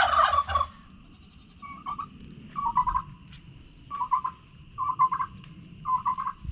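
Farmyard fowl calling: a louder call right at the start, then short warbling calls repeating about once a second, over a steady high-pitched drone.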